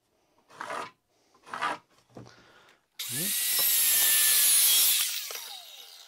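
Two quick pencil strokes along a speed square on a barn board, then a Craftsman 7-1/4-inch circular saw spins up suddenly about three seconds in and cuts through the board for about two seconds. It then winds down, its pitch falling as the blade slows.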